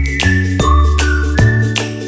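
Upbeat background music: a bouncy bass line and regular beat under a high, whistle-like melody with bright tinkling accents.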